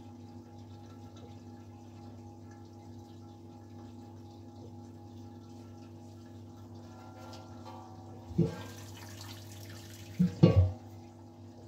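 Stainless steel pot lid clanking against the brewing kettle, once about eight seconds in and twice in quick succession about two seconds later. Underneath, a steady hum with liquid running.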